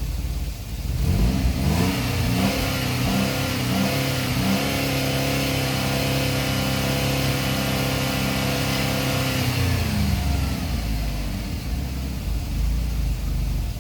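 GM 3.6-litre V6 engine revving up about a second in, holding high revs for about seven seconds, then dropping back to a low idle near the end. The engine has just been replaced and is running on a cold start.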